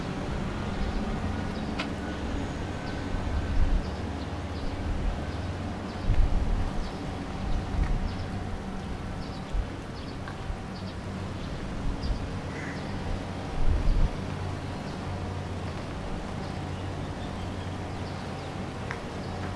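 Urban street ambience: a steady low hum of distant traffic, with small birds chirping now and then and a few low bumps.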